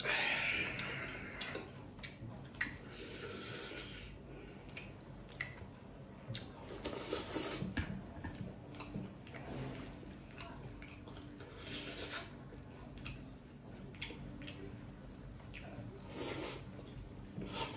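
Noodles being slurped and chewed close to the microphone, in several separate slurps.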